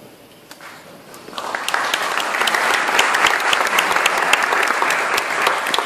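Audience applauding after a talk. A few scattered claps come first, and the applause swells to full about a second and a half in.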